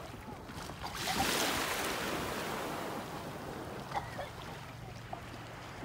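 Shallow sea water washing and lapping, swelling about a second in and then easing off, with some wind on the microphone.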